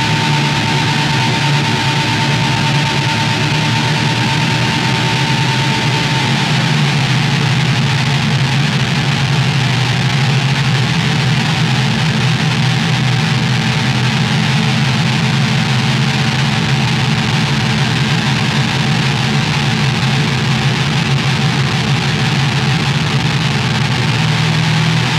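Home-built Devil's Triangle drone synth running through effects pedals: a dense, steady low drone with a noisy hiss laid over it. A high steady tone in the drone fades out about six seconds in.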